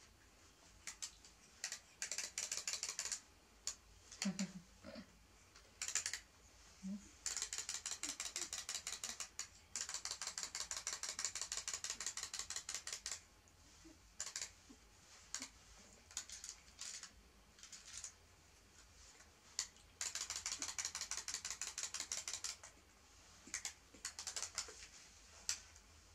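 Clockwork of wind-up mechanical toy chicks running, a rapid mechanical clicking in runs of one to three seconds, repeated several times, with scattered single clicks and taps between runs.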